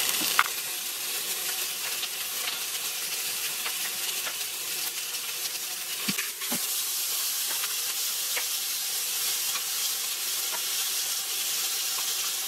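Beef roast sizzling steadily as it sears in the stainless steel inner pot of an Instant Pot on the sauté setting. A few light clicks, with a couple of knocks about six seconds in as tongs turn the roast over.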